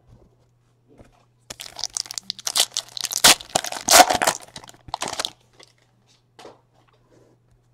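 Plastic wrapper of a trading card pack being torn open and crinkled by hand, a burst of crackling that runs for about four seconds and then stops, leaving a few faint ticks as the cards are handled.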